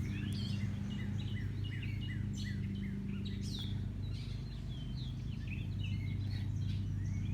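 Birds chirping: many short, falling chirps overlapping throughout, over a steady low hum.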